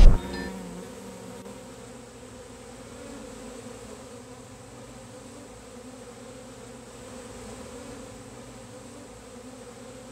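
Honeybees buzzing in a steady hum, after a loud chime-like note cuts off at the very start.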